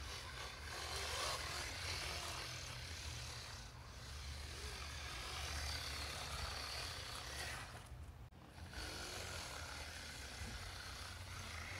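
Brushless electric motor (3380 kV, 2S LiPo) of a small RC snowmobile whining as it drives over snow, its pitch shifting with the throttle, with a brief drop-out about eight seconds in.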